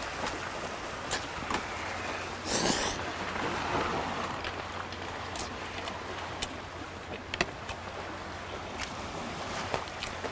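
A man slurping seafood ramen noodles, with one loud slurp about two and a half seconds in, then chewing with a few scattered sharp clicks. Underneath is a steady wash of sea waves and wind.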